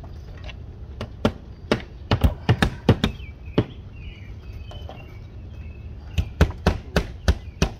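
Hand hammer driving nails through vinyl siding into the wall: two runs of quick, sharp strikes, one in the first few seconds and another near the end.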